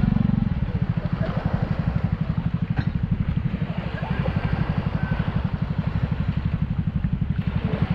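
A small engine idling with a steady, rapid low thumping that does not change. Men's voices sound faintly over it.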